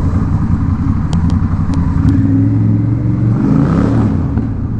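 Honda Rebel 1100's parallel-twin engine running with its muffler removed, straight-piped and loud; it revs up about two seconds in and drops back near the end.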